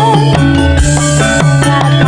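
Live campursari music: a female singer's sung phrase trails off just after the start, and the band carries on with held instrumental notes, a bass line and a regular drum beat.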